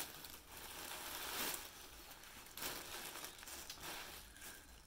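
Brown paper packing rustling and crinkling as it is pulled open and off a wrapped item, in a few louder rushes.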